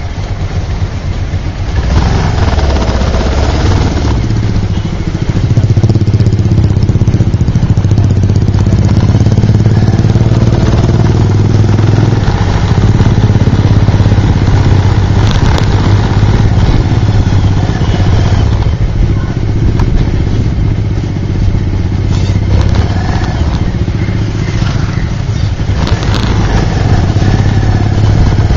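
Motorbike engine running under way in slow, congested traffic, a steady low drone that swells and eases with the throttle.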